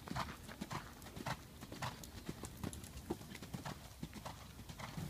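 Thoroughbred mare's hoofbeats on arena sand as she canters under a rider: faint, regular thuds, about two strides a second.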